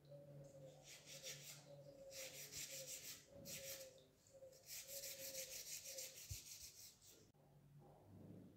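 Red scouring pad scrubbing a wet, corroded copper-alloy candlestick section in quick back-and-forth strokes, in three short bouts, faint.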